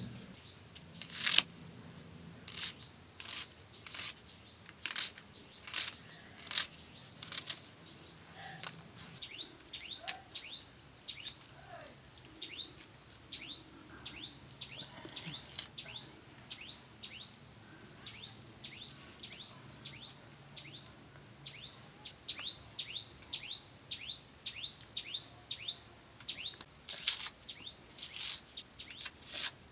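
A small bird peeping over and over, short falling chirps about twice a second, through most of the second two-thirds. Sharp crisp cuts of a curved sickle blade through garlic cloves, the loudest sounds, come every second or so in the first eight seconds and again near the end.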